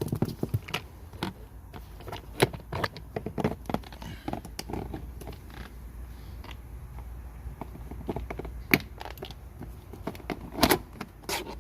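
Hands and a tool working on a car seat's plastic trim: scattered clicks, taps and rattles as a part and its screw are taken out, with a few sharper knocks toward the end.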